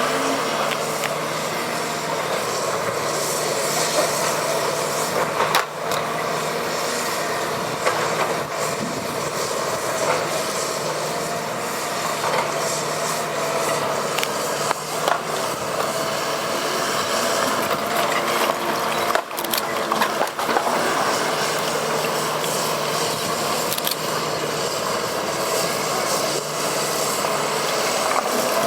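Cat 319D excavator's diesel engine running steadily, with a scattering of sharp knocks and clunks.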